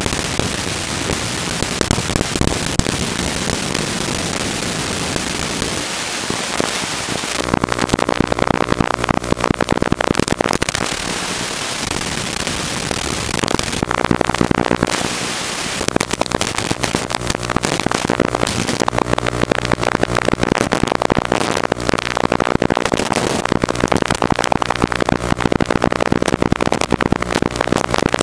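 Crackling static hiss from an analog FPV video receiver, with a buzzing tone coming and going in stretches as the signal weakens and breaks up.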